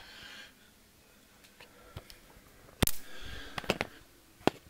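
Sharp clicks and knocks as someone steps onto a plastic digital bathroom scale on a tiled floor and the recording phone is handled, with one loud knock about three seconds in and a quick cluster of clicks after it.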